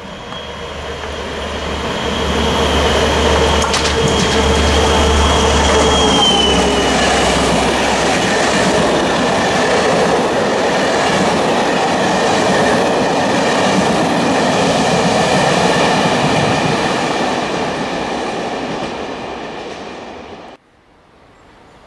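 Locomotive-hauled train of Corail coaches passing through at speed: it builds up as it approaches, a high whine and a low hum from the locomotive drop away about six seconds in as it goes by, then a steady loud rush and rattle of coach wheels on the rails that fades near the end and cuts off abruptly.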